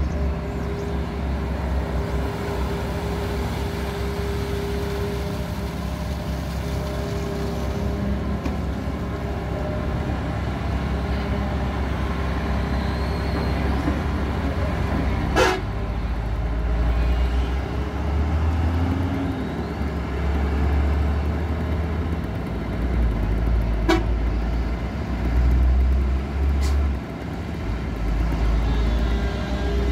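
Hyundai long-reach excavator's diesel engine running steadily, swelling louder in stretches through the second half as the hydraulics take load. A few sharp knocks stand out over it, about halfway through and twice near the end.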